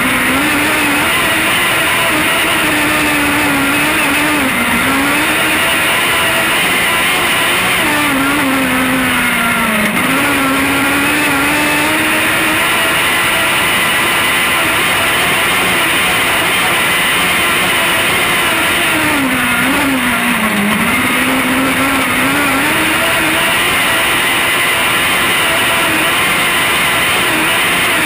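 Onboard sound of an autograss class 8 single-seater race car's engine at racing revs. The engine note holds high, then drops and climbs back three times, about four, ten and twenty seconds in, as the car lifts off and gets back on the power.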